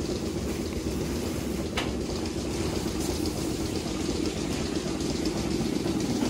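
Steady low mechanical rumble of dairy barn machinery, with one short click about two seconds in.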